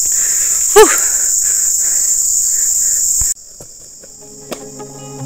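Loud, steady high-pitched insect chorus, broken about a second in by a brief vocal sound gliding in pitch. The insect sound cuts off abruptly after about three seconds, and quiet music begins.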